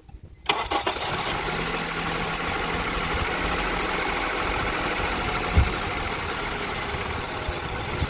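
2002 Honda CR-V's 2.4-litre four-cylinder engine cranking and firing up about half a second in, then idling steadily, with one short low thump a little after the middle. This is the engine whose rough idle the replaced parts have not cured.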